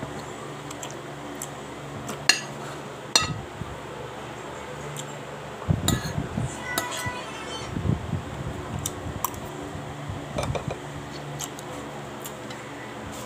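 Metal spoon and fork clinking and scraping against a plate of rice and vegetables during eating. There are two sharp clinks a couple of seconds in, then a busier spell of scraping and handling noise near the middle, then a few light clicks.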